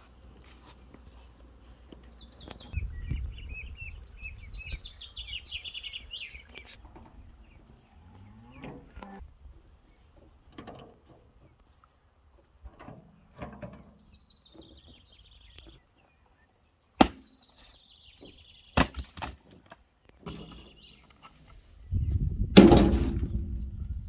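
A cow mooing, once around a third of the way in and again, loudest, near the end, with birdsong early on and a couple of sharp wooden knocks as logs are handled.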